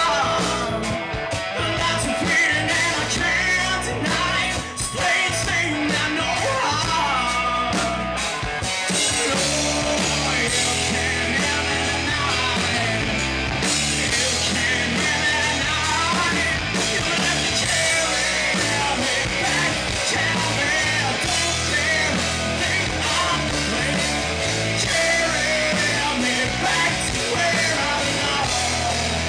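Live rock band playing: electric guitars through Marshall amps, bass, drums and a male lead singer. The sound grows fuller about eight seconds in.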